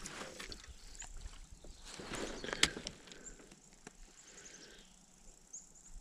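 Spinning rod and reel handled and worked while fighting a hooked fish: rustling, light clicks and knocks, with one sharp click about two and a half seconds in and a quick run of faint ticks in the second half.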